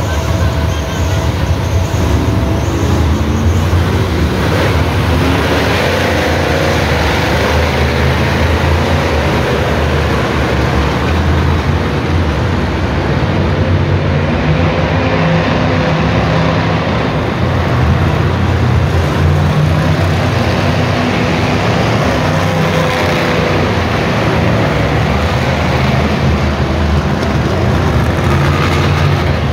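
Full-size monster truck engines running loudly, revving up and down now and then.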